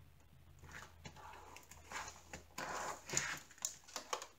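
Hands handling a diamond-painting canvas and a thin magnetic picture frame: soft rustling and sliding with a few light clicks and taps, busiest in the second half.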